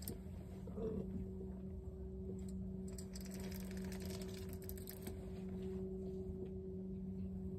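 Light clicking and ticking from a fishing reel being cranked against a hooked fish, over a steady low hum.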